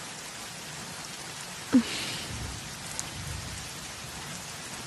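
Steady heavy rain falling, with a low rumble of thunder swelling and fading in the middle. A brief, short vocal sound is heard a little before two seconds in.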